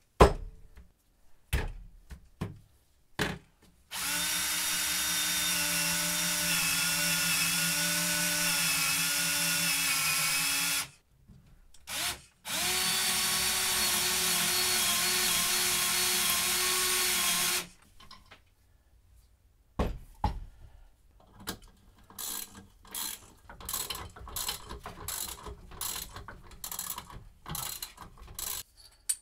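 Cordless drill boring into a wooden block in two long, steady runs, with a short burst between them. Then a ratchet wrench clicks in quick strokes as the vise's mounting bolt is tightened.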